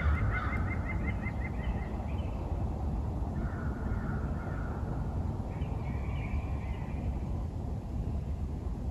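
Wild birds calling: a quick run of short repeated notes, about four a second, in the first two seconds, then scattered calls, over a steady low rumble.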